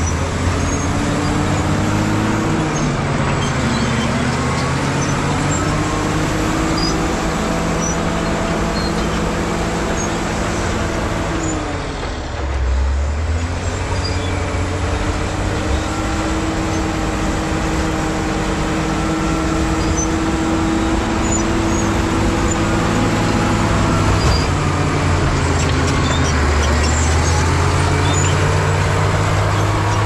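Caterpillar D7G bulldozer's diesel engine running under load, its pitch sagging and recovering as the load comes and goes, with a deep dip and a low surge about twelve seconds in.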